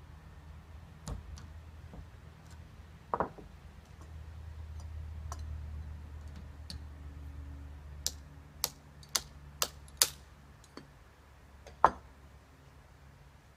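Ramrod working in the barrel of a Feinwerkbau History No.1 muzzle-loading underhammer pistol as it is loaded. There is a knock about three seconds in, then a run of five sharp clicks about half a second apart as the rod seats the charge, and one more click near the end.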